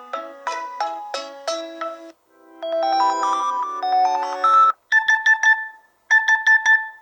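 Nokia T20 tablet playing its alarm tones in turn. First a short melody of plucked notes, then a brief pause and a chiming melody. Near the end come two short runs of rapid identical beeps.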